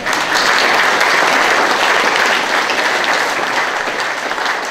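Audience applauding: clapping that breaks out suddenly and goes on steadily, easing slightly near the end.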